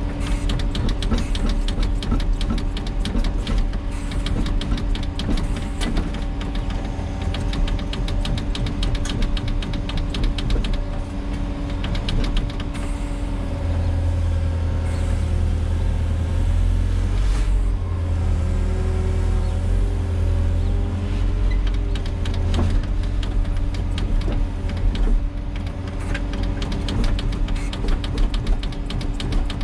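Volvo EWR150E wheeled excavator's diesel engine running steadily with a constant whine, the low rumble swelling and the tones shifting in pitch about halfway through as the machine works under load.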